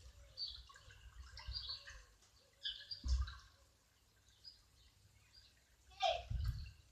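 Small birds chirping faintly in short scattered calls, with two low bumps, one about three seconds in and one near the end.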